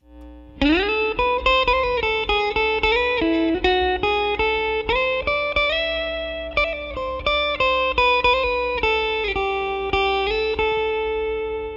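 Guitar playing a picked single-note melody with short slides between notes, ending on a long held note. Under it runs a steady low mains hum: 60 Hz line noise of the kind the presenter associates with a ground loop, not yet removed.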